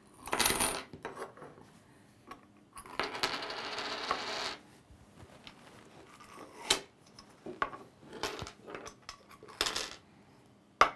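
US coins poured out of 3D-printed PLA tubes onto a wooden tabletop, clinking and jingling in separate pours: a short spill right at the start, a longer run of coins sliding out about three seconds in, then a few brief clinks as the last tubes are tipped.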